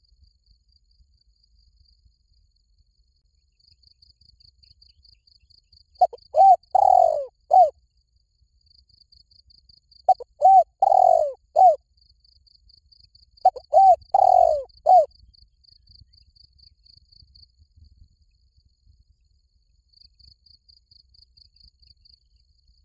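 Spotted dove cooing: three phrases of four or five low, arched coo notes, a few seconds apart. Under them an insect keeps up a faint, rapid, even pulsing.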